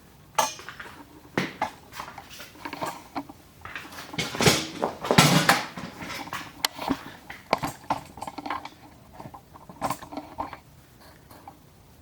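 Irregular metal clinks, knocks and rattles of tools and workpiece parts being handled at a lathe's four-jaw chuck, with a longer scraping clatter about four to five seconds in.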